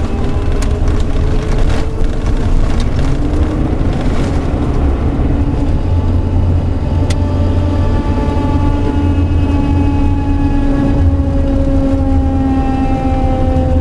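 A vehicle running with a deep, steady rumble and a whining tone above it that slides slowly in pitch, easing down toward the end. This is the unidentified 'terrible noise' the owner is asking about.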